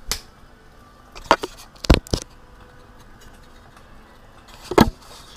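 A handful of sharp knocks and taps as a hand handles the camera close to the microphone, the loudest about two seconds in and again near the end.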